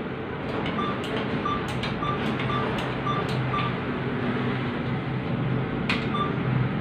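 ATM keypad beeping as the buttons are pressed: six short, same-pitched beeps about half a second apart, then one more near the end, each with a key click. A steady low hum runs underneath.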